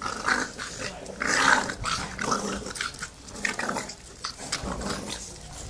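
Staffordshire bull terrier puppies growling as they play-fight, in short irregular bursts, the loudest about a second and a half in.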